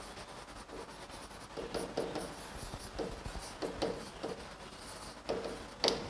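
Faint, irregular scratchy strokes of writing on the glass of an interactive touchscreen board, each a quick tap-and-slide as words are written and crossed out.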